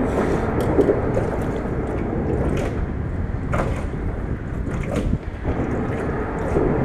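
Steady low rushing noise in an aluminum jon boat, with a few light clicks and knocks as the fishing line and a crappie are handled at the fish basket.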